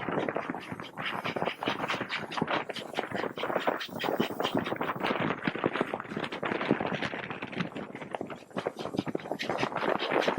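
Victorian R class 4-6-4 steam locomotive No. 766 working hard, its exhaust beating in a rapid, steady run of sharp chuffs several times a second.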